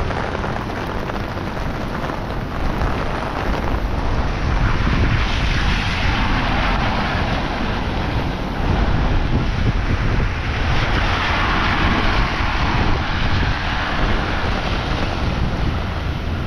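Heavy rain pouring down in strong wind, with gusts buffeting the microphone in a deep rumble. The rain's hiss swells twice, about a third of the way in and again past the middle.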